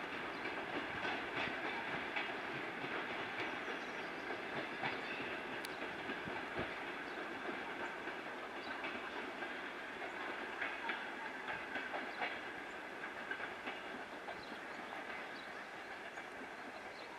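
Passenger coach wheels clattering over rail joints and switches as a departing train moves away, with a steady rumble and scattered irregular clicks and knocks, growing slowly fainter.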